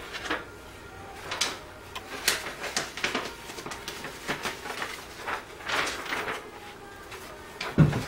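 Thin protective plastic film being peeled off a new laptop LCD panel, with irregular crinkling and rustling. Near the end there is a single dull thump, the loudest sound.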